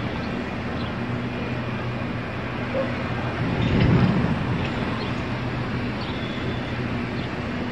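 City road traffic: a steady engine hum under general traffic noise, with one vehicle passing close and loudest about four seconds in.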